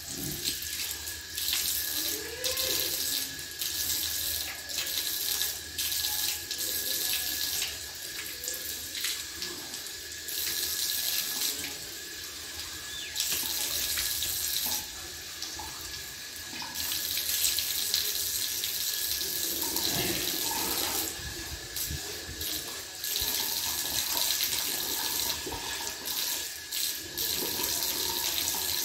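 Water running from a wall tap and splashing into a tiled washing trough as a man washes his hands, face and forearms under the stream. The splashing swells and drops every second or two as his hands move in and out of the water.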